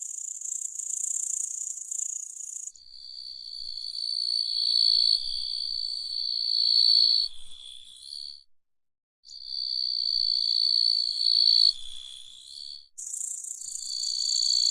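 Grasshopper stridulation: a high, buzzy insect song that gives way after about three seconds to a steadier, lower-pitched trill. The trill breaks off briefly around the middle, then resumes, swelling and fading in loudness. The high buzz returns near the end.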